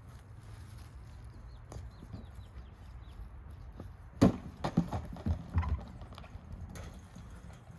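A sharp knock about four seconds in, followed by a quick run of lighter knocks over the next second and a half, over a low steady rumble.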